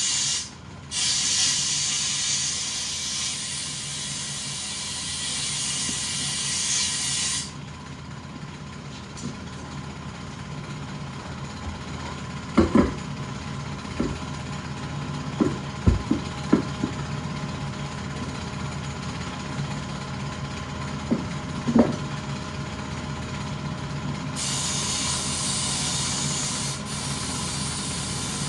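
Long steady hiss of pressurized air or spray during a leak test on a freshly welded cast aluminum wheel: about seven seconds with a brief break just after the start, then again near the end. A few sharp knocks sound in between.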